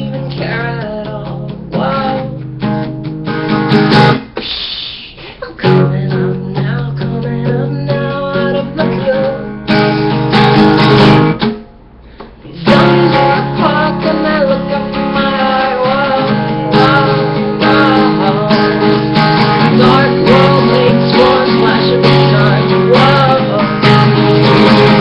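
Acoustic guitar strummed and picked, an instrumental passage with no clear vocal, briefly dropping away about four and a half and twelve seconds in.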